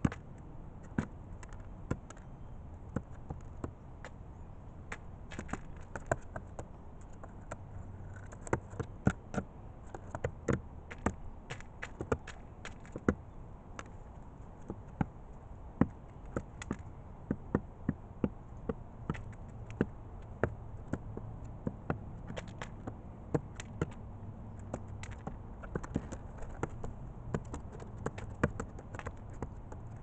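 A crow's beak pecking at feed in a plastic dish: irregular sharp taps and clicks, at times several a second.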